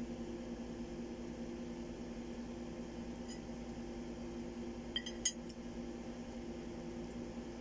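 A steady low hum runs throughout. About five seconds in come two small sharp clinks, as of a fork touching a ceramic plate while mango is handled on it.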